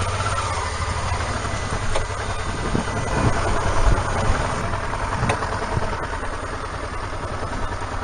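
Honda Deauville motorcycle's V-twin engine running steadily at low revs.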